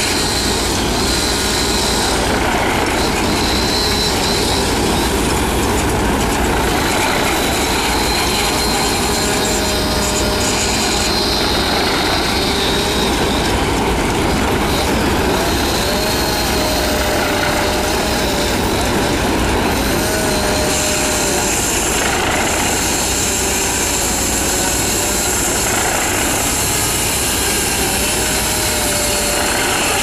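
Vintage circular sawmill running steadily, its large blade sawing through a log on the carriage. A faint wavering whine comes and goes over the loud, even machine noise.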